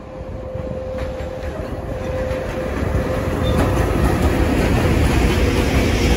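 A train approaching along the track, its rumble growing steadily louder, with a faint steady whine over it.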